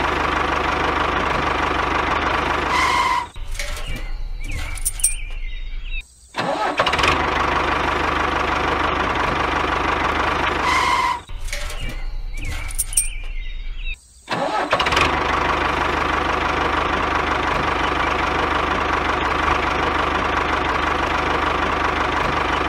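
Tractor engine running steadily. The sound repeats the same pattern about every eight seconds and cuts out briefly about six seconds and fourteen seconds in.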